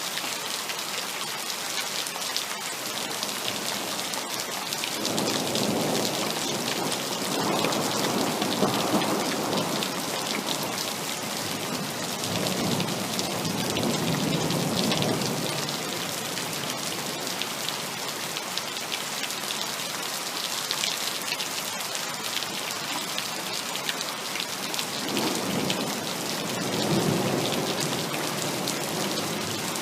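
Heavy rain falling steadily, with rolling thunder rumbling twice: a long roll from about five seconds in to about sixteen, and a shorter one near the end.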